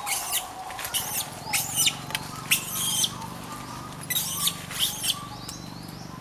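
Baby macaque giving a string of short, high-pitched squeaks, in two bunches with a pause of about a second between them, over a steady low hum.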